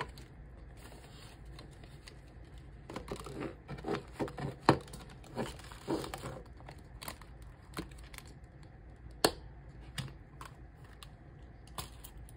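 Paper bills rustling and a clear plastic binder pouch crinkling as cash is slipped in and the pouch is handled, with scattered sharp clicks, the loudest about halfway through and another near three-quarters of the way.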